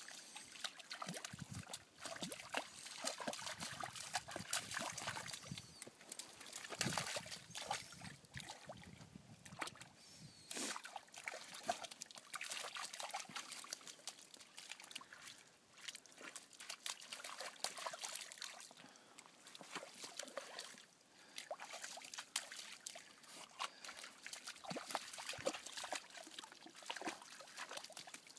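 Vizslas' paws splashing and sloshing through shallow muddy puddles, an irregular run of wet splashes and slaps.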